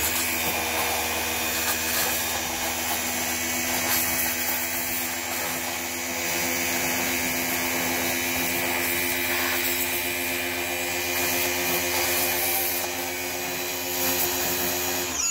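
Pressure washer running, its gun spraying a jet of water onto a car's door sill: a steady motor hum under the hiss of the spray. It cuts off suddenly at the end, when the trigger is let go.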